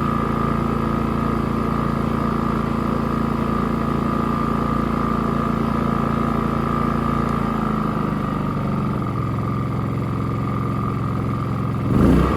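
WEN 3800-watt inverter generator running steadily with eco mode off; its engine note shifts about two thirds of the way in. A short knock near the end.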